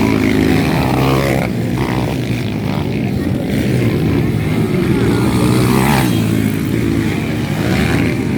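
200 cc motocross bikes' engines racing, revving up and down with the pitch rising and falling.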